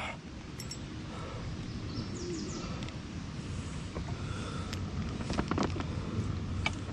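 Outdoor river ambience: a steady low background hiss with a few faint bird chirps and some light clicks.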